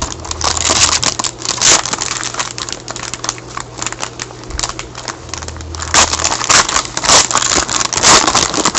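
Plastic trading-card pack wrapper being torn open and crinkled by hand: a dense run of irregular crackles, busiest at the start and again in the last few seconds.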